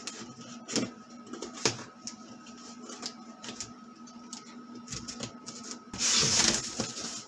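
Scissors snipping and tapping at the packing tape of a cardboard box, short scattered clicks, then a loud scraping rustle of cardboard as the box flaps are pulled open about six seconds in.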